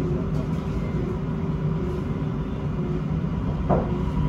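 Siemens Inspiro metro train heard from on board while running slowly through an underground station: a steady low rumble of wheels and running gear with a faint steady whine. A brief sharp sound cuts in near the end.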